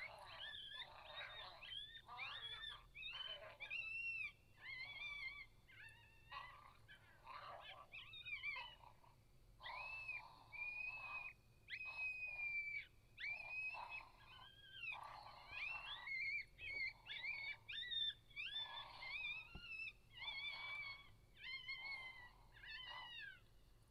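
Coyotes howling and yipping: many high, wavering calls that rise and fall and overlap in quick runs with short breaks, heard at a distance.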